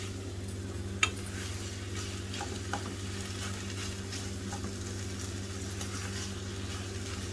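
A plastic spatula stirs and scrapes chicken and onion through a flour-and-milk sauce in a non-stick pan over low heat, with a soft sizzle. The milk is going in bit by bit as the sauce thickens. One sharp tap of the spatula against the pan comes about a second in, and a steady low hum runs underneath.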